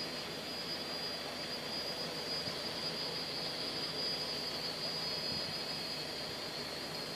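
Quadcopter's electric motors and propellers whirring steadily in flight: a constant high whine over a hiss.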